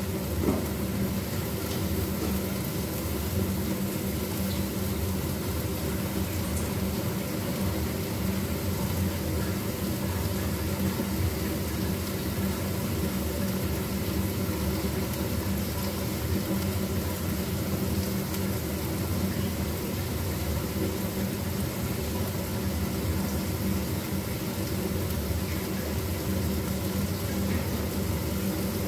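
Meat frying in a pan over a gas burner, a steady sizzle, over a steady low hum. There is a light knock about half a second in.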